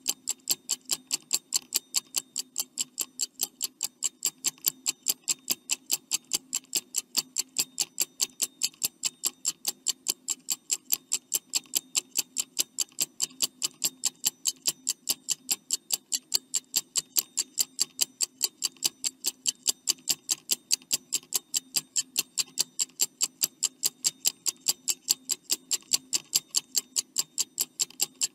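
Stopwatch ticking sound effect counting down a quiz timer: fast, even ticks over a faint steady hum.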